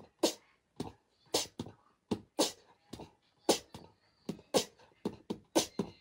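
An uneven run of short, sharp clicks or knocks, about two a second, with silence between them.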